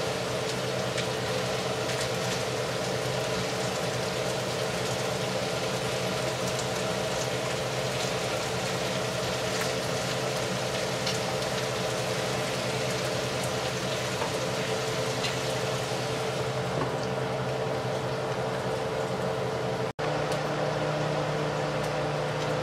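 Beef, onion and broccoli frying in a stir-fry pan: a steady sizzling hiss with a few faint pops, over a steady low hum.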